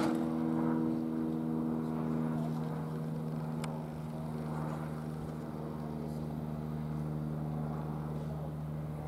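A steady low mechanical hum, with the soft hiss of steam as LMS Ivatt Class 2MT 2-6-2 tank engine No 41312 creeps forward with its drain cocks open. A single sharp click comes about three and a half seconds in.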